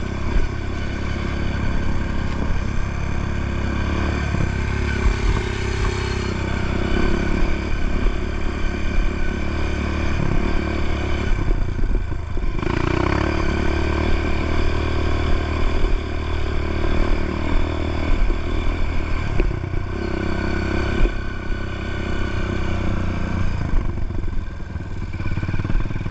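Dirt bike engine running under throttle while riding a dirt trail, its note dropping off and picking up again twice, about halfway through and again about three quarters through.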